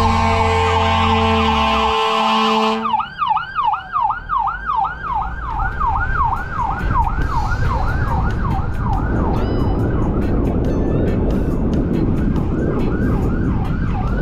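Emergency-vehicle siren in a fast yelp, a rising-and-falling wail repeating about two to three times a second, over road noise. Background music plays under it at first and cuts off about three seconds in.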